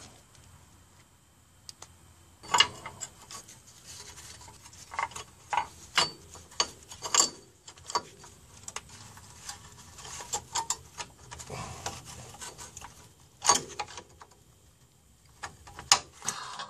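Mercedes SLK 230 rear parking-brake shoes and their return springs being worked into place by gloved hands: irregular small clicks and knocks of the parts, with rubbing in between.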